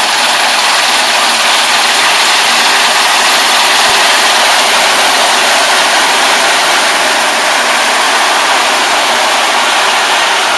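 Rice harvester running at work: a loud, steady mechanical din of engine and machinery that holds even throughout.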